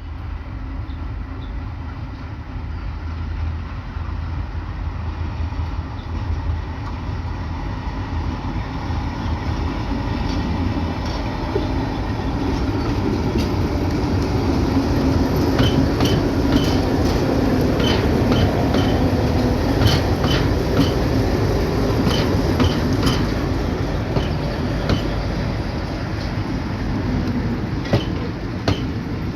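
Passenger train running on the tracks: a steady low rumble that grows louder, with wheels clicking over rail joints from about halfway through.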